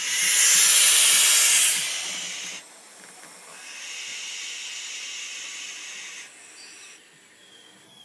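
Barn owls hissing: one long, loud hiss of about two and a half seconds, then a second, softer hiss about a second later. It is the owls' defensive hiss at a person close to them, which stops once she leaves.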